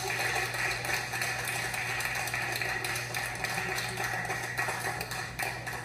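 Audience applauding, a dense patter of claps that thins and dies down near the end, over a steady low electrical hum.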